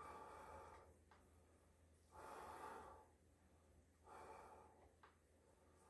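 Three faint breaths blown out, about two seconds apart: someone blowing on hot, freshly microwaved cup ramen to cool it before eating. There is a small click near the end.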